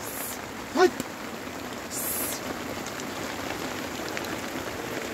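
Heavy rain falling steadily on a tarp shelter, with a short voice-like call about a second in.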